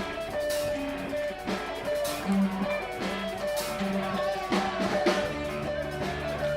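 Band music: guitar with a drum kit playing a steady beat.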